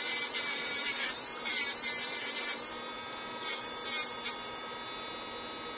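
Electric nail drill (e-file) running with a steady high-pitched whine, its bit grinding against the nails in three short gritty bursts during the first four seconds or so.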